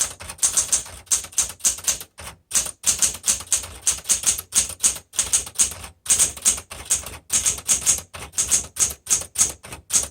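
Smith Corona Galaxie Deluxe 12 manual typewriter being typed on at a brisk, steady pace: a fast run of sharp keystroke clacks, about five a second, with brief pauses about two and six seconds in.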